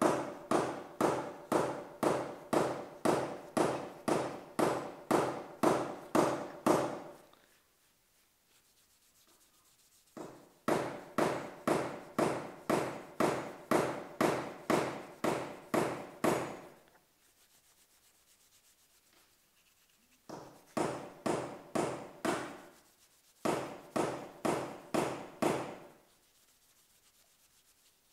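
Abrasive paper rubbed by hand back and forth over a forged steel hammer head. The scratchy strokes come about two to three a second, in four bouts with short pauses between.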